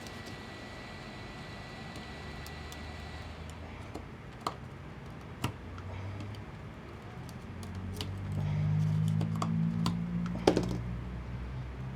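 Light, irregular clicks and taps of plastic as an opened camera battery pack's casing and cells are handled. A low hum comes up about two-thirds of the way through and grows louder.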